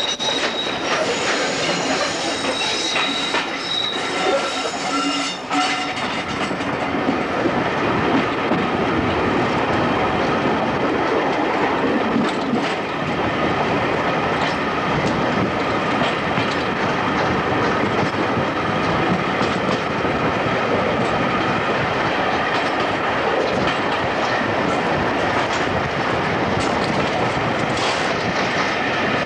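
Wheels of a Class 504 electric multiple unit running on rails, heard from an open carriage window: a high wheel squeal on the curve for about the first six seconds, then a steady rolling noise with clicks over rail joints and points.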